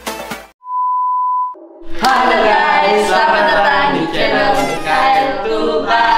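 Electronic dance music cuts off, followed by a steady high-pitched beep lasting about a second. Then, about two seconds in, a small group of young voices sings a cheerful welcome jingle.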